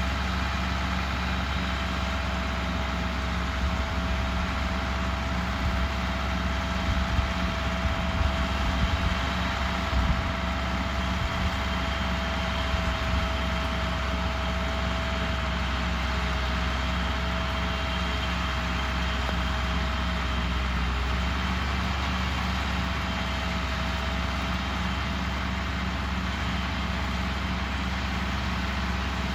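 An engine running steadily at a constant speed, with a thin steady whine above the low hum.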